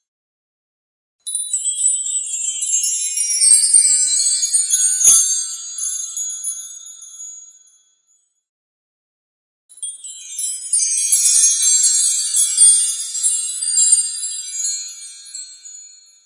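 Chimes ringing as a shimmering cluster of high metallic tones, in two swells. Each starts suddenly, peaks and fades away over about six seconds, with a gap of silence between them.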